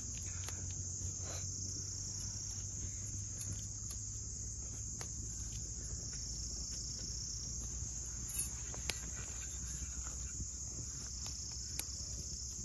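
Steady, high-pitched insect chorus, with a few faint clicks scattered through.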